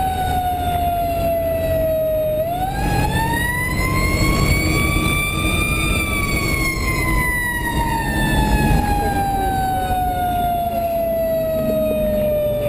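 Fire engine siren heard from inside the cab, one slow wail. It falls at first, climbs from about two seconds in to a peak around six seconds, then falls slowly to the end. The truck's Detroit Series 60 diesel engine runs underneath as a low rumble.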